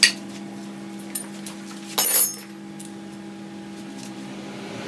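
Metal hand tools clinking during engine teardown: a sharp clink at the start, a small tick about a second in and a louder metallic clatter about two seconds in, over a steady low hum.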